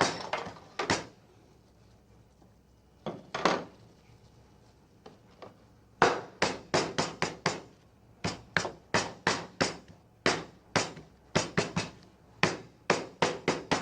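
Chicken breast being pounded flat under plastic wrap on a cutting board: a series of thuds, a few at first, then a steady run of two or three blows a second from about halfway through.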